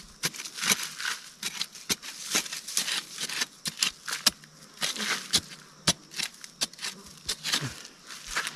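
A hand digging tool chopping and scraping into dry, sandy soil: a quick, irregular run of sharp strikes with gritty scrapes between them.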